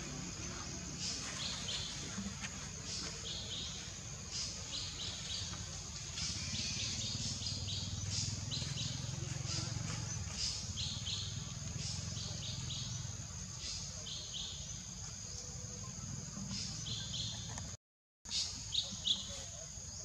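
Forest birds chirping: short, high chirps in quick clusters, repeating every second or so over a steady high drone. The sound cuts out completely for a moment near the end.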